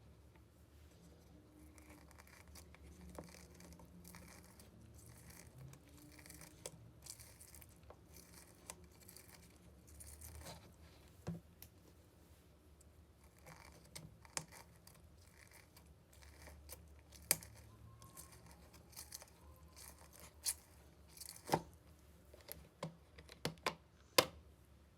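Hands handling ingredients and utensils during food preparation: scattered light clicks and brief tearing or rustling sounds, with a few sharper taps in the second half.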